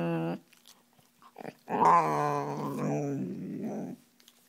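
Soft coated wheaten terrier growling close to the microphone with a clear pitch: the tail of one growl at the start, then one long growl from about two seconds in that sinks slightly in pitch. A play growl, which the owner takes as not being angry.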